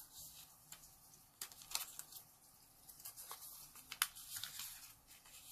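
A sheet of colored origami paper folded in half, pressed flat along the crease and opened out: faint paper rustling with a few short, crisp crackles, the sharpest about four seconds in.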